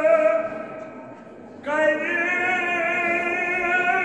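A man chanting a Kashmiri marsiya (elegy) in long held notes through a microphone. One note ends just after the start and fades out in echo; a new long, slightly wavering note begins a little under two seconds in and is held.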